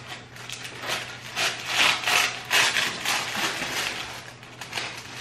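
Paper and card packaging rustling and scraping as it is handled, in a string of rough rustles that are loudest in the middle.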